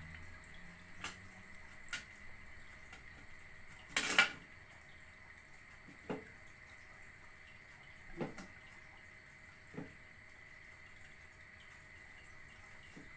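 Kitchenware being handled: a few separate clinks and knocks of utensils against containers, the loudest a short cluster about four seconds in, over a faint steady hum.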